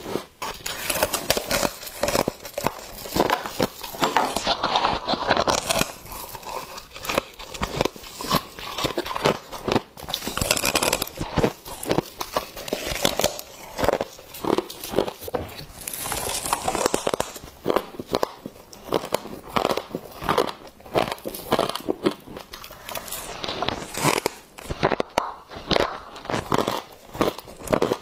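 Mouthfuls of fluffy freezer frost crunched and chewed close up, in quick, crisp crunches with brief pauses, along with the squeak and crumple of the frost block squeezed and broken apart by hand.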